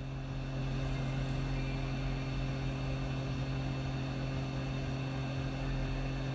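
Hot-air rework station blowing steadily over a steady electrical hum, heating a phone logic board to melt the solder under a small diode; the airflow gets a little louder about half a second in.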